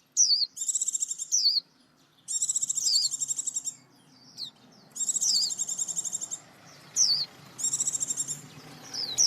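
Songbird singing repeated phrases: a quick falling whistle followed by a fast, high, buzzy trill lasting about a second, four times with short pauses between.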